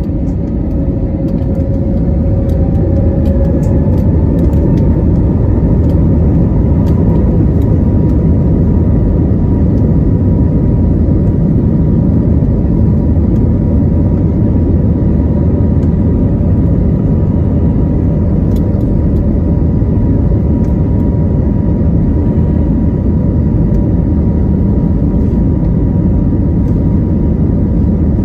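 Airbus A320neo's Pratt & Whitney geared turbofan engines heard from the cabin over the wing, spooling up to takeoff thrust for the takeoff roll: a whine rises in pitch over the first several seconds, then holds steady over a loud rumble of engine and runway noise.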